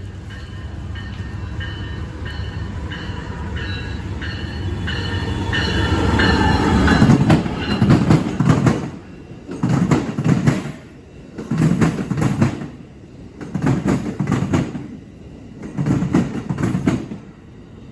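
Amtrak Pacific Surfliner train arriving past the platform under braking. High ringing tones repeat steadily at first, the sound grows to its loudest about seven seconds in as the train draws alongside, then the cars roll by with a heavy swell of wheel noise about every two seconds.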